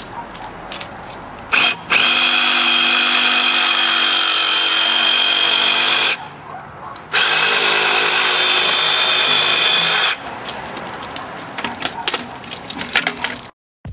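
Reciprocating saw cutting through PVC pool plumbing pipe. After a brief blip, the motor runs steadily for about four seconds, stops for a second, then runs again for about three seconds. Light clattering and knocking of handling follows.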